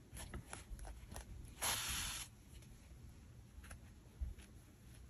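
Faint handling of chunky acrylic yarn and crocheted fabric: a few soft clicks and taps, and one rustling rub lasting under a second about a second and a half in, as yarn is worked against the stitches.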